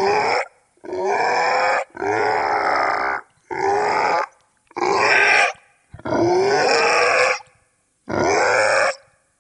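Goblin creature vocal sound effect: a string of about seven short, gritty guttural grunts and snarls, several sliding upward in pitch, each broken off by a brief silence.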